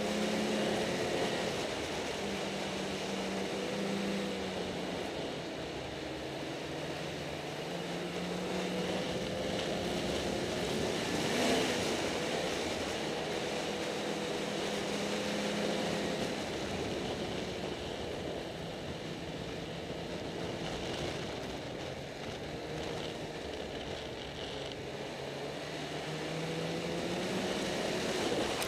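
Snowmobile engine running under way, its pitch rising and falling with the throttle. A brief thud about 11 seconds in.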